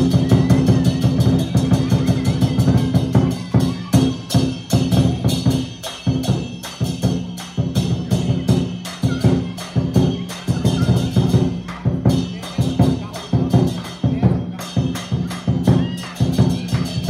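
Lion dance percussion: a big Chinese drum beaten with crashing hand cymbals, loud and continuous. A dense, fast roll for the first three seconds or so, then separate heavy beats at about two or three a second.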